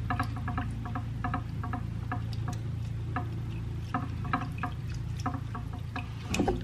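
A whisk beating a wet mixture in a ceramic mixing bowl, with soft irregular clicks against the bowl about three to four times a second.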